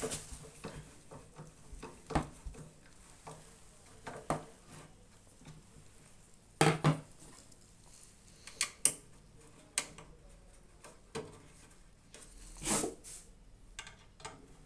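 Metal parts and tools being handled while a microwave oven is taken apart: scattered clinks and knocks, with a loud pair about seven seconds in.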